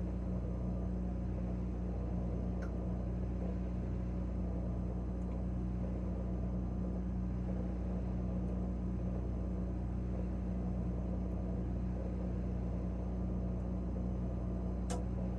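Refrigerator running with a steady low electrical hum, heard from inside the closed fridge, with one short click near the end.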